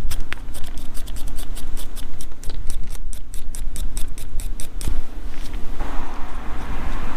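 Quick, rapid scrubbing strokes, about five or six a second, cleaning grime off the dirty threads of a Harley clutch cable fitting. The strokes stop about five seconds in, and a steady hiss starts about a second later.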